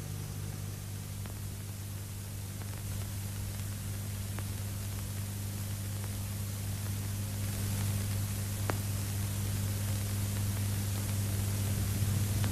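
Steady hiss and low hum from an old 1970s film soundtrack, growing slightly louder, with a couple of faint ticks and no clear blows or voices.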